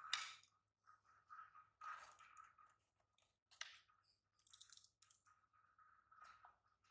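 Faint, scattered crunching and chewing of a baby monkey eating popcorn, with a sharp click near the start as the plate is pushed on the tiled floor.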